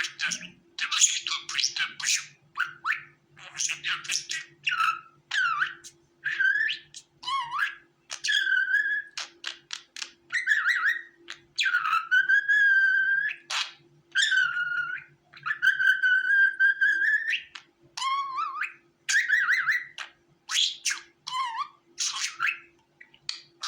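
Budgerigar chattering and warbling: a fast run of short scratchy chirps broken by several long whistled notes, the longest lasting about two seconds.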